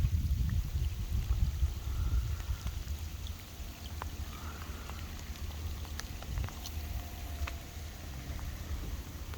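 Low rumble of wind buffeting the microphone, heaviest in the first few seconds then easing, with scattered light ticks of raindrops in steady rain.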